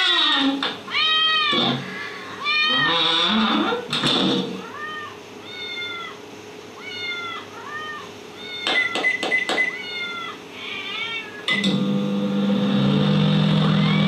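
A layered sound-effect mix of a cat meowing over and over, loud and bright for the first few seconds, then quieter and muffled as if shut behind a door. About nine seconds in comes a quick run of clicks and short beeps, and a second or two later the steady hum of a running microwave oven starts, with the cat still meowing over it.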